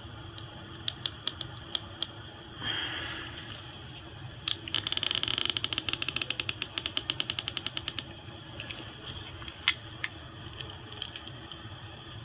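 Small tools clicking and scraping on a phone being taken apart. There are scattered clicks, a short scrape about three seconds in, then a fast, ratchet-like run of clicks lasting about three seconds.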